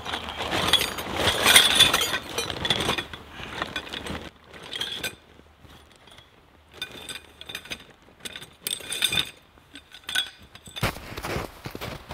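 Heavy canvas bell-tent fabric rustling and dragging over snow for the first few seconds. Then scattered light metallic clinks and clicks of tent hardware being handled, with short quiet gaps between them.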